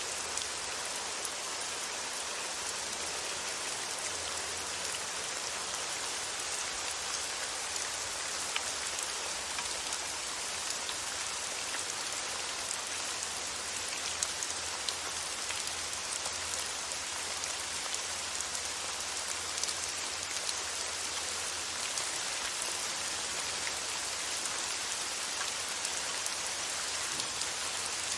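Steady rain falling, an even hiss of rainfall with scattered small drop ticks.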